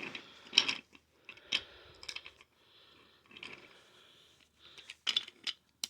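Toy train engines being handled and set down, giving a few light clicks and knocks with faint rustling between them.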